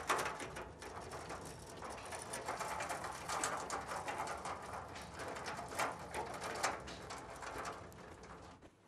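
Metal library book cart being pushed along, its wheels and frame rattling with a steady run of small irregular clicks, stopping abruptly near the end.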